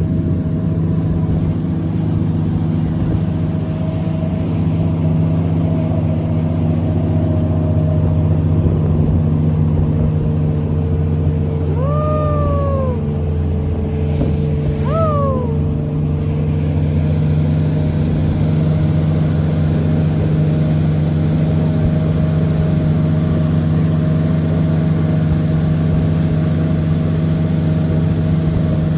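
An engine running steadily at an even pitch, a constant drone. About halfway through, two brief high cries rise and fall over it, a few seconds apart.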